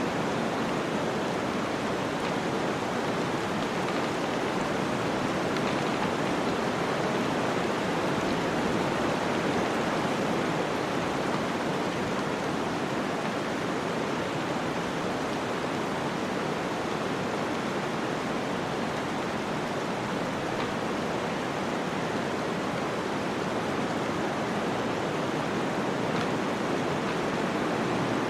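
Flowing water rushing steadily: a dense, even wash of sound with no separate splashes or drips.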